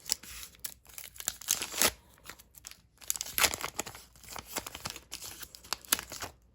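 Trading-card pack wrapper crinkled and torn open by hand, in irregular bursts of crackling, with the loudest moments about two, three and a half, and six seconds in.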